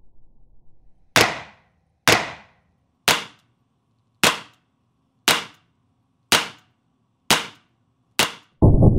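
Eight sharp, gunshot-like cracks, about one a second, each ringing out briefly. Just before the end a sudden, much heavier low boom begins.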